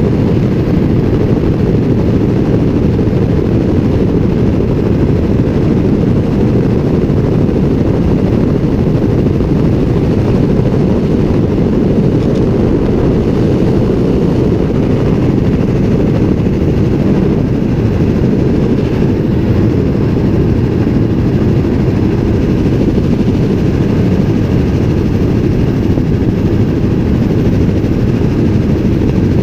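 Helicopter in flight: a steady, loud drone of rotor and engine, heaviest in the low end and unchanging throughout.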